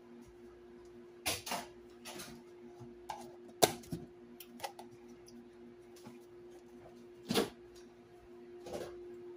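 A steady low hum with scattered clicks and knocks of kitchen items being handled beside the stove, among them the butter tub being picked up. The sharpest knock comes a little before four seconds in, with other strong ones about a second and a half in and about seven and a half seconds in.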